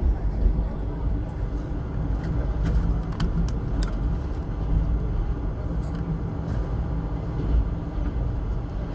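Passenger train running, a steady low rumble of the moving coach with a few faint ticks about three to four seconds in.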